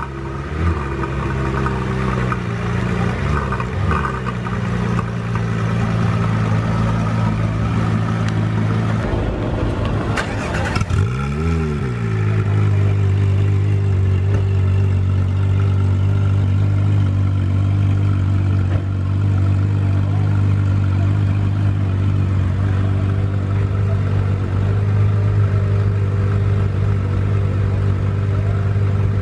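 Porsche 911 GT3 RS (997 Mk1) 3.6-litre flat-six running at idle at the exhaust, with short throttle blips a few seconds in and again about twelve seconds in, then holding a steady idle.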